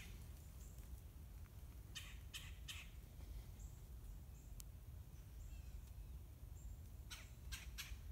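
Faint scratchy rustles in quick bunches of about three strokes, about two seconds in and again near the end, with a few faint short high chirps between them.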